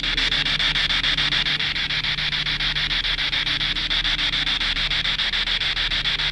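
Handheld radio used as a spirit box, sweeping rapidly through stations: steady loud static hiss chopped into fast, even pulses, with no voice coming through.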